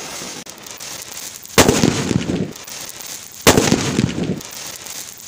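A chakri ground spinner fizzing with a steady hiss, then two loud firecracker bangs about two seconds apart, the first about a second and a half in. Each bang is followed by about a second of rumbling crackle: the sutli bomb, a twine-wrapped firecracker, going off.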